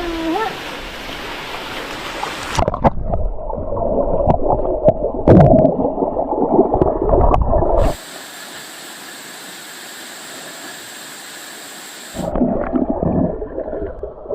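Water gurgling and churning close around a swimmer in a mountain stream pool, with a few sharp clicks and splashes. About halfway through, for some four seconds, a steady even hiss of rushing water takes over, then the gurgling returns.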